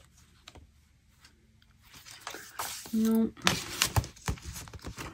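Paper and photo prints rustling and sliding against each other as they are handled, with several short sharp taps, starting about two seconds in.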